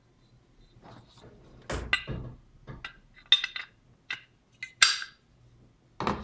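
Metal airsoft gun parts clinking and knocking together as they are handled and set down. A series of separate clinks with brief ringing, the loudest about five seconds in.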